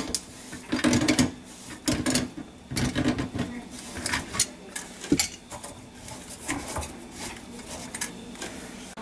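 Pliers gripping and turning a plastic slip nut on a garbage disposer's drain pipe. Irregular bursts of scraping, creaking and clicking of metal jaws on plastic come about once a second as the nut is worked loose.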